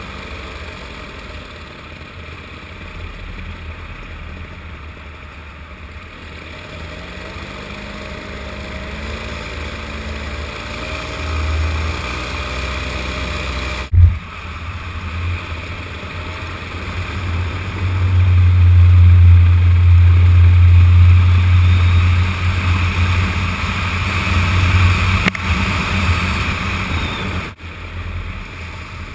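Paramotor engine running steadily in flight, its pitch rising for a few seconds about a third of the way in. A sharp click about halfway through, and a heavy low rumble swells for several seconds after it.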